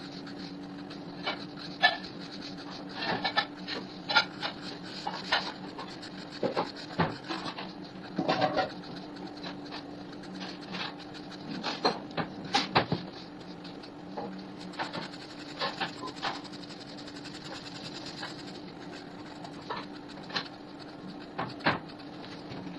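Pitt pencil scratching across drawing paper in short, quick, irregular strokes as hair and features are hatched in, over a steady low hum.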